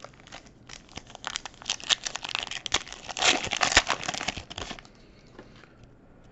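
A foil wrapper of a 2019-20 Panini Mosaic basketball card pack being torn open and crinkled by hand. It makes dense crackling for about four seconds, loudest near the middle, and stops about five seconds in, leaving a few light rustles.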